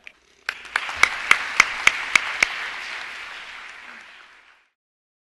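Audience applauding, with a few louder claps close by standing out at about three to four a second. The applause fades away near the end.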